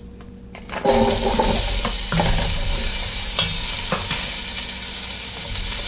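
Chopped onion hitting hot olive oil in a stainless steel pot: a loud sizzle starts suddenly about a second in and keeps going, with a wooden spoon stirring the onion and knocking against the pot.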